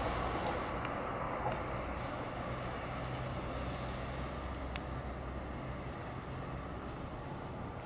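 JR West 500-series Shinkansen trainset departing a station, its running noise and a low steady hum slowly fading as it pulls away.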